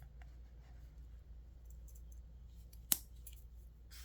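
Victorinox Pioneer Swiss Army knife being handled: one sharp click about three seconds in, followed by a few faint ticks, over a low steady room hum.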